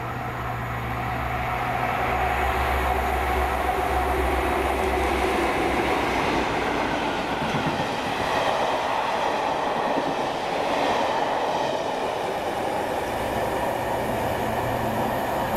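Class 57 diesel locomotive 57314 hauling a rake of Mark 1 coaches through a station. For the first several seconds its engine gives a steady low drone. Then, from about six seconds in, the coaches' wheels rumble and clatter past on the wet track.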